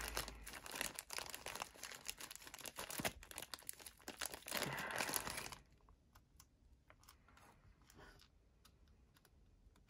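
A small bag of spare parts crinkling and being rummaged through, with small clicks, while replacement knife pivot bearings are dug out. It stops about five and a half seconds in, leaving only a few faint clicks.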